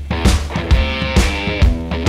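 Background rock music with a steady beat, about two drum hits a second.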